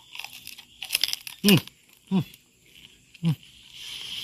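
Crisp roast pork belly crackling crunching as it is bitten and chewed, a cluster of sharp crunches about a second in. Three short, low, falling vocal sounds follow at intervals.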